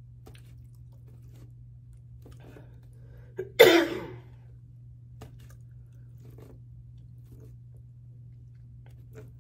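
A woman coughs once, sharply, into her hand about three and a half seconds in, in the middle of a mouthful. Otherwise there is only quiet chewing and the odd tick of a plastic fork.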